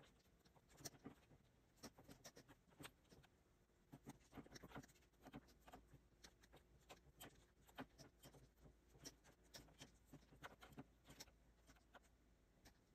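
Faint, irregular clicks and taps of a stylus on a Wacom Cintiq pen display, mixed with keyboard key presses.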